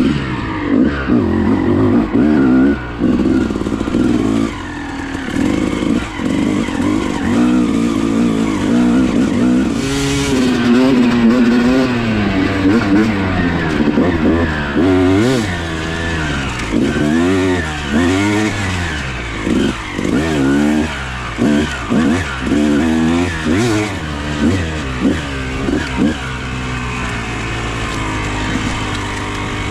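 Dirt bike engine running under a rider's throttle, its pitch rising and falling as it revs up and drops back. About halfway through come a string of quick rev swings, and near the end it settles into a steadier, lower drone.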